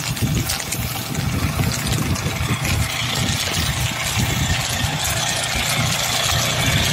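Engine of a Polaris firefighting utility vehicle running steadily while its pump feeds the hose. A hiss grows stronger about three seconds in.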